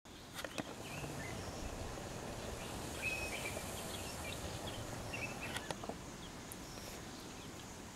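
Quiet open-air savanna ambience: a steady background hiss with scattered short bird chirps and a few faint clicks.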